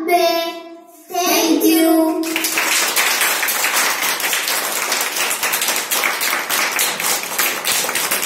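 A child's singing voice ends the counting song for about two seconds, then a group of children claps without a break, many hands together, until the end.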